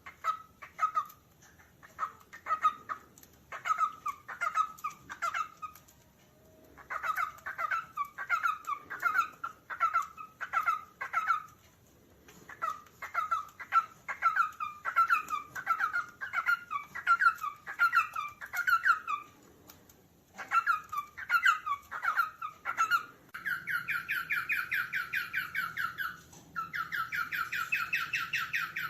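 Cockatiel calling: runs of short, quickly repeated chirping notes, each sliding down in pitch, broken by short pauses. Near the end the calls change into a fast, continuous rattling chatter that stops once briefly and starts again.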